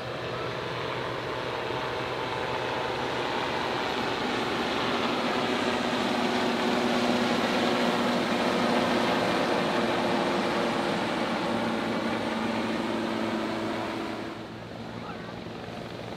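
Two turbine helicopters, a Sikorsky S-61 and a Sikorsky S-76, flying past with a steady drone of rotors and engines. It grows louder to a peak about halfway through, then fades and drops off suddenly near the end.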